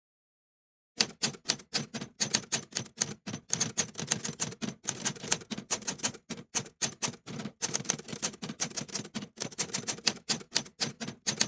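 Typewriter keys striking in a quick, uneven clatter of about five a second, starting about a second in: a typing sound effect matched to letters appearing one by one.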